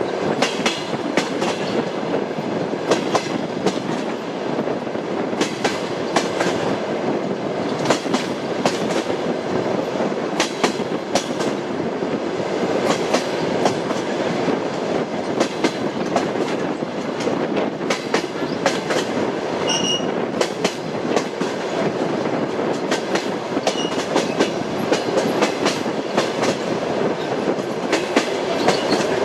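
Moving train's wheels clacking over rail joints at running speed, over the steady rumble of the carriage. A brief high squeak comes about two-thirds of the way through.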